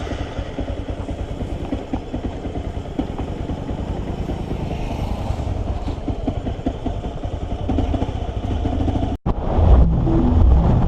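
Motorcycle engine running with a fast, even pulse. About nine seconds in the sound drops out for an instant and returns louder, with wind rumbling on the microphone as the bike rides.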